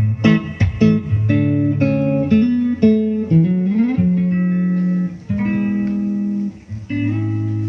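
Instrumental guitar passage in a pop ballad. Quick plucked notes come first, then one note slides upward about halfway through, and longer held notes follow over a bass line.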